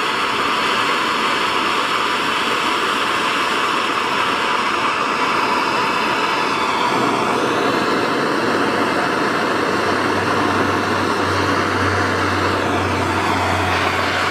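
MAP gas torch flame running with a steady hiss while heating an aluminum tank for fluxless aluminum brazing.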